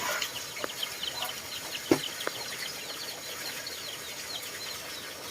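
Small birds chirping continually in short, high, falling notes, with a few sharp light clicks around two seconds in.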